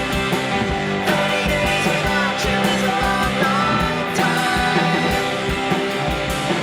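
Rock music with distorted guitars, drums at a steady beat and singing.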